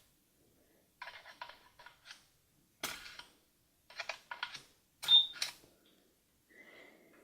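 Barbie Blinging Cash Register toy handled during a credit-card payment: a series of light plastic clicks and taps as the card and keys are worked, a short high chirp about five seconds in, and a steady electronic beep near the end from the toy's card reader.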